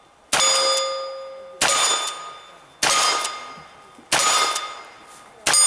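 Five gunshots in steady succession, about 1.3 seconds apart, each followed by the ringing clang of a struck steel target fading away.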